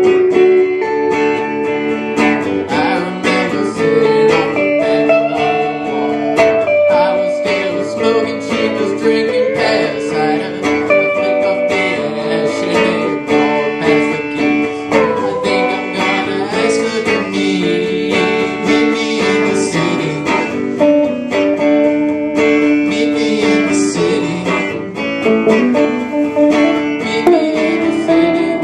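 Two electric guitars playing a song live through an amplifier, with a man singing along at times.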